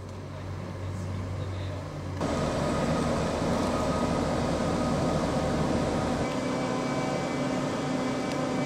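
Heavy construction machinery running steadily, a low engine hum. About two seconds in it becomes louder and fuller, with several steady tones over it, and the lowest hum drops out about six seconds in.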